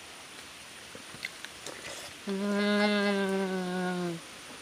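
A man's voice humming one steady "mmm", held for about two seconds from a little past halfway and sinking slightly in pitch at the end.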